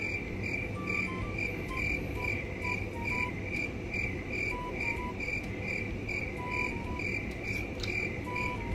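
Background music: a soft melody of short held notes over a steady chirping pulse about twice a second, like crickets.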